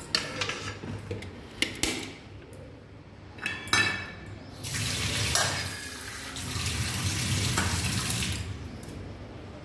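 A few light clinks and knocks of kitchen utensils, then water running from a tap in a steady stream for about four seconds.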